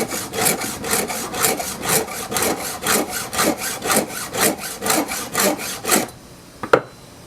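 Hand file rasping back and forth across a chainsaw chain's cutting tooth in quick, even strokes. The filing stops about six seconds in, followed by a single short click.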